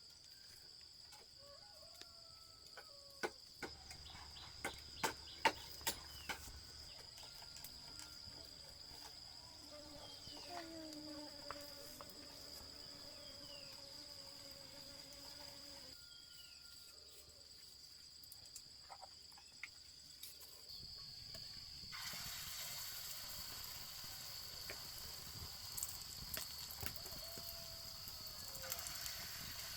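Crickets droning steadily on one high note, with a few sharp knocks in the first several seconds. About two-thirds of the way through, a hiss of food frying in hot oil sets in and keeps going.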